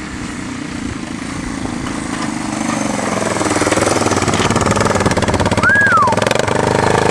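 Yamaha Timberwolf 250 quad's single-cylinder four-stroke engine running through a homemade straight-pipe exhaust, growing louder as the quad approaches, with the revs changing from about three seconds in. The exhaust has a raspy note, which the owner puts down to an exhaust leak where the pipe joins the header.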